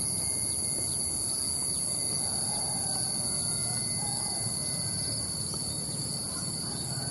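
Steady high-pitched chorus of insects, such as crickets or cicadas, over a low, even outdoor rumble.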